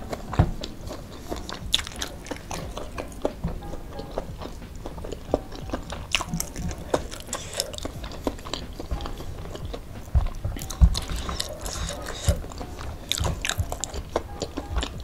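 Close-up eating sounds: chewing with many small, wet mouth clicks, and fingers squishing and mixing cooked rice with sambal. One louder knock comes about two-thirds of the way through.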